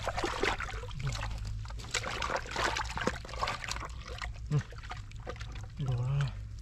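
Hands splashing and sloshing in a small hole of muddy water, with irregular wet splashes and trickles as they grope for and pull out a fish. A short vocal grunt comes near the end.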